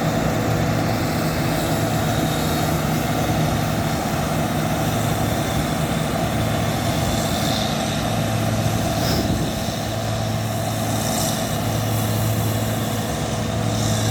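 Combine harvester running steadily while cutting wheat: a constant engine drone with a steady machinery hum and the rush of the header and threshing works.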